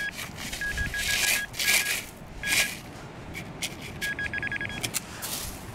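Handheld metal-detecting pinpointer beeping in short runs of one pitch as it is pushed through wet beach sand, signalling a metal target in the hole; about four seconds in the beeps come faster. Between the beeps the probe scrapes and swishes through the coarse sand.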